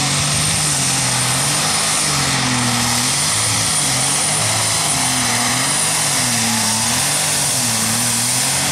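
Turbocharged diesel engine of a pulling semi truck running loud, its pitch dipping and rising about once a second as the throttle is worked. A steady high turbo whistle sits over it.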